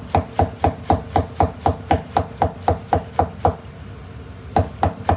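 Chinese cleaver chopping garlic scapes on a wooden cutting board in quick, even strokes, about four a second. The chopping pauses for about a second near the end, then starts again.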